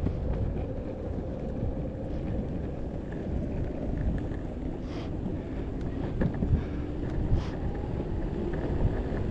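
Wind buffeting the microphone over the low rolling rumble of a Possway T3 electric skateboard riding along, with a faint steady hum and a few sharp clicks.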